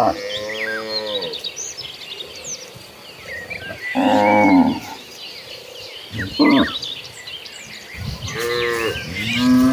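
Cattle mooing, several cows calling one after another: a long call early on, a loud one near the middle, a short one after it, and two more near the end. High, thin chirps of small birds run between the calls.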